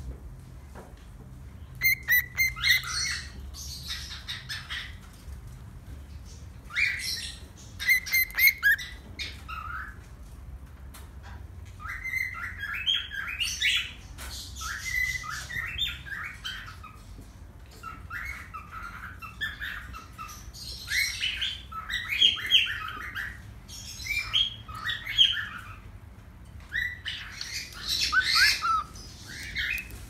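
Cockatiel chirping in bouts of short, repeated calls, a few seconds of chatter at a time with brief pauses between.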